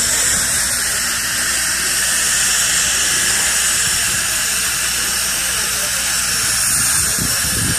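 Steam hissing steadily from the 1927 ALCO-built steam locomotive Robert Dollar Co. No. 3, with a low steady hum underneath.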